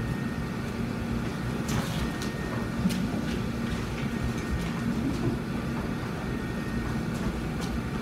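Steady low mechanical hum and rumble, with a few faint clicks about two and three seconds in.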